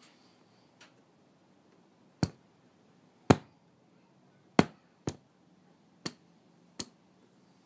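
Input selector switch of a Sansui AU-999 stereo amplifier turned step by step through its sources, giving six sharp clicks, irregularly spaced over about five seconds, the loudest near the middle.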